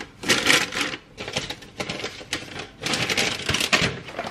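Rapid clicks and crinkly rustling, coming in clusters, of things being handled by hand.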